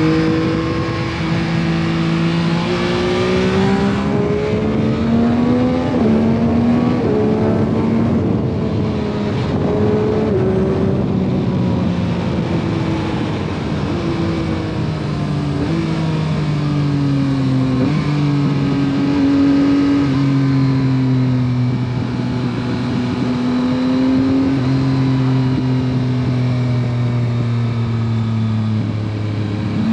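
A 2021 Yamaha MT-09 SP's 890 cc inline three-cylinder engine through its stock exhaust, heard while riding. The engine note climbs and drops as the bike accelerates and shifts, with stretches of steady cruising. The bike picks up revs again near the end, all over a steady rush of wind.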